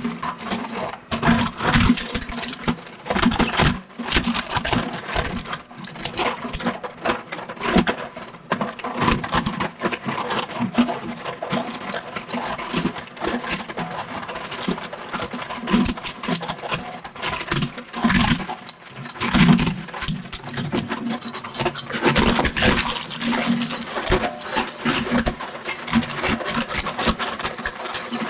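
Twin-shaft shredder blades crunching through a plastic toy car, with a dense, irregular stream of cracks and snaps as the hard plastic chassis and wheel hubs break apart. The shredder's motor hums steadily underneath.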